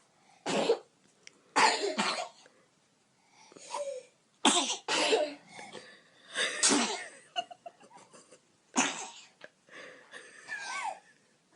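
Young children sneezing over and over: about seven short, sharp sneezes, spaced a second or two apart.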